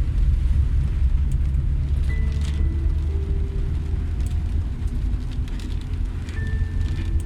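Slow background music of single held notes that change every second or so, over a steady low rumble from the rainy street.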